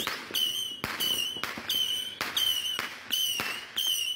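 300-shot missile firework battery firing small rockets one after another. Each shot is a sharp pop followed by a short high whistle that dips slightly in pitch, about five in a row, a little more than one a second.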